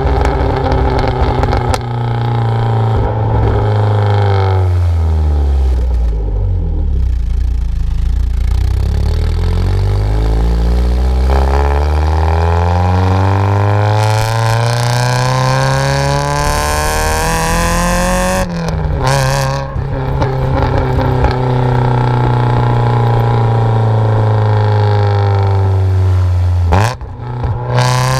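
Mazda Miata four-cylinder engine through a decatted, straight-piped exhaust. It is driven through the revs: the pitch sinks slowly for several seconds, then climbs steadily for about ten seconds. About two-thirds of the way through, the pitch drops suddenly, as at a gear change, then holds fairly steady, with a brief dip near the end and a few crackles from the exhaust.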